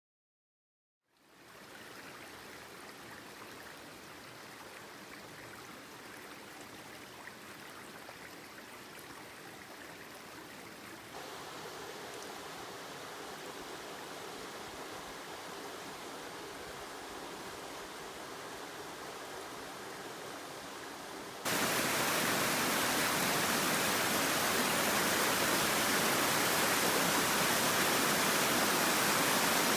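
Steady rush of flowing water from a creek or waterfall, starting about a second in and getting suddenly louder twice, about ten and about twenty seconds in.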